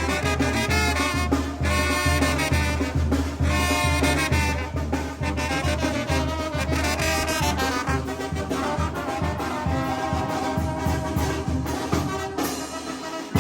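Brass band playing a son azoyuteco: trumpets and trombones carry the tune over a steady bass beat. Near the end the bass drops out and the music briefly gets quieter.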